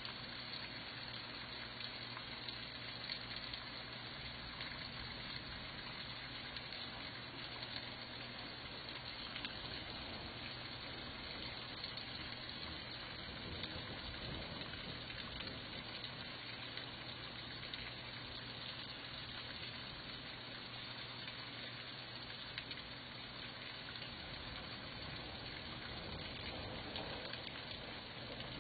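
Heavy rain and floodwater rushing along a flooded street: a steady, even wash of water noise.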